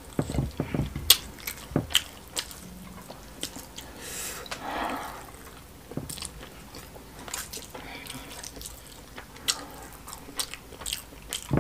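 Close-miked eating sounds: wet chewing, lip smacking and mouth clicks as rice and smoked catfish stew are eaten by hand, coming as irregular short clicks.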